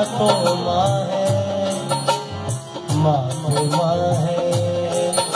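Live Indian devotional singing: a male voice holding and bending long, ornamented notes over harmonium, with a dholak drum beating a steady rhythm underneath.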